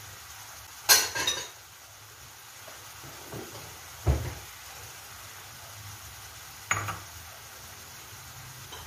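Chopped tomato and onion frying in oil in a pan, a quiet steady sizzle, broken by three sharp clinks and knocks of kitchenware: about a second in, at about four seconds and near seven seconds.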